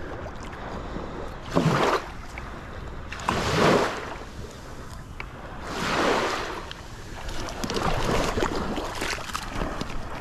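Shallow water swishing around the legs of someone wading the flats, a surge about every two seconds with each stride.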